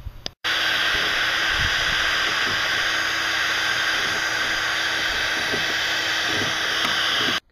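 A power tool running steadily with a loud, even hiss and a faint hum, starting abruptly about half a second in and cutting off just before the end.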